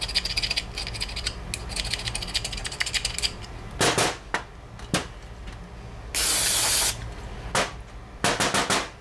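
Rapid scratchy scraping and rubbing on an outboard carburetor body for about three seconds as white powdery fuel deposits are cleaned out of it, then a few knocks as it is handled. A short hissing spray burst, under a second long, comes just after the middle.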